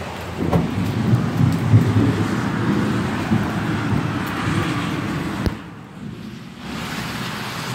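Heavy rainstorm: a steady rush of rain with a low, uneven rumble. It drops away after a click about five and a half seconds in and comes back about a second later.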